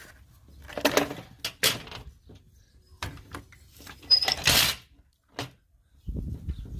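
Scattered clicks and knocks of parts being handled and taken apart, with a short rustling scrape about four seconds in and a low rumble starting near the end.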